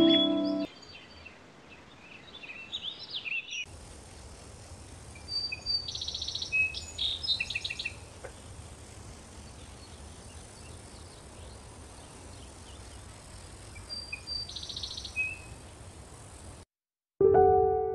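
Outdoor rural ambience: birds chirping and twittering, with quick rattling trills, over a steady background hiss, and a low rumble that enters about four seconds in. Music cuts off within the first second, and piano music starts near the end.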